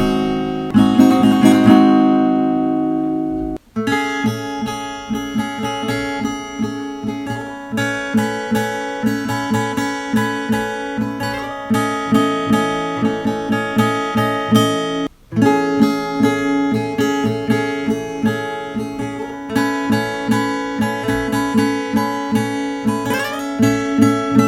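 Acoustic guitar capoed at the second fret: a chord rings out, then a steady run of quickly picked notes follows. The playing cuts out sharply for a moment twice, about three and a half seconds in and about halfway through.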